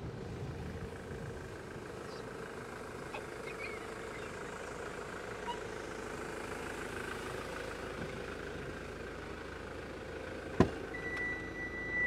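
Chausson motorhome's engine idling steadily. About ten and a half seconds in there is a sharp click as the cab door opens, followed by a steady high warning tone.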